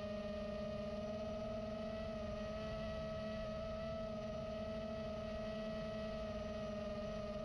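FPV quadcopter's brushless motors and propellers whining at one steady pitch, held at a constant throttle.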